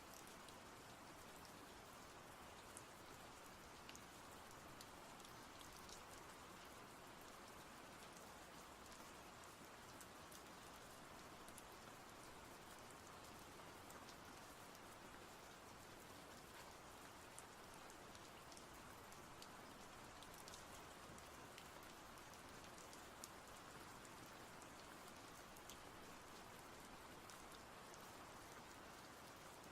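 Near silence: a faint, steady hiss with scattered light ticks.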